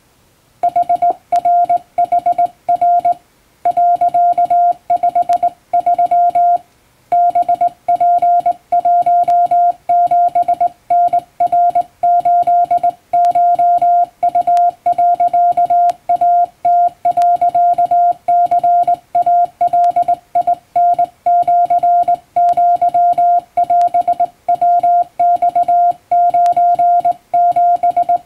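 Japanese wabun Morse code hand-sent on a straight key, heard as a single steady beep tone keyed on and off in dots and dashes. It starts about half a second in, with short breaks between groups of characters.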